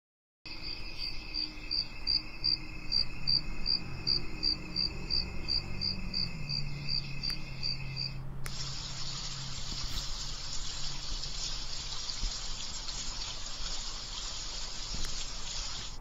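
Built-in nature-sound tracks from a ZHENYEMEI sleep mask. First comes a cricket recording, high chirps pulsing about three times a second. About eight seconds in it switches abruptly to a steady rushing water sound.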